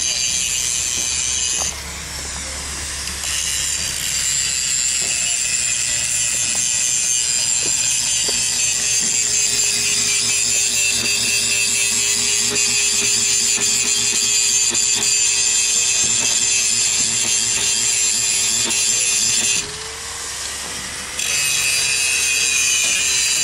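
A power tool runs steadily with a high-pitched whine over a lower hum, cutting out briefly twice, about two seconds in and again near the end.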